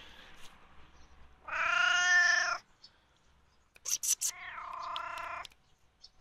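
Domestic cat meowing twice: a long, loud meow, then a few seconds later a second, quieter meow just after a few quick clicks.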